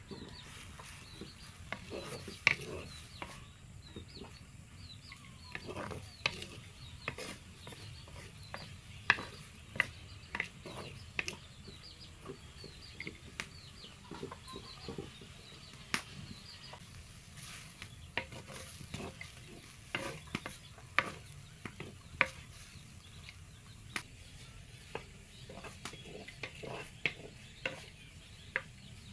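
Wooden spatula stirring sliced radish in a clay pot, with irregular sharp knocks and scrapes of the spatula against the pot.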